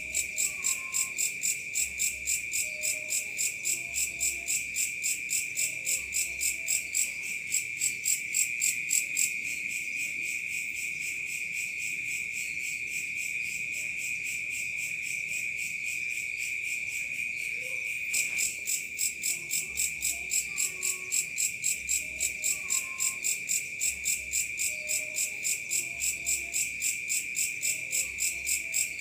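Night insects chirping. A steady high trill from crickets runs under a second insect's pulsing chirps, about three a second, which stop for several seconds in the middle and then start again.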